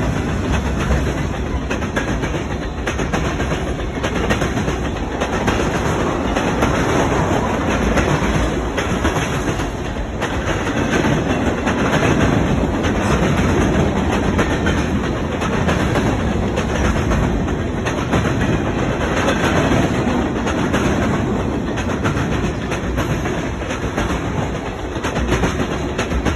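Norfolk Southern manifest freight train's cars rolling past: a steady rumble of steel wheels on rail with repeated clicking over the rail joints.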